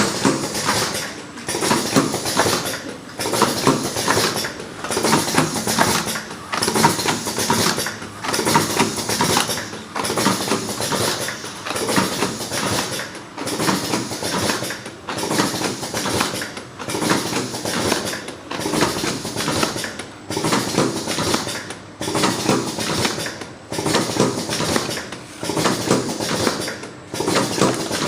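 Vertical automatic cartoning machine running, a clattering mechanical cycle full of clicks and knocks that repeats evenly about every one and two-thirds seconds.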